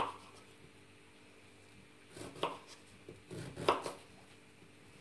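Kitchen knife cutting through raw beetroot and striking a wooden cutting board: one cut at the start, then two short runs of cuts between about two and four seconds in.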